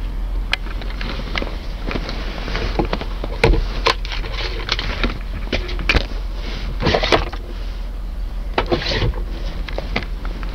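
Scattered clicks, knocks and rustling from handling inside a car's interior, over a steady low hum.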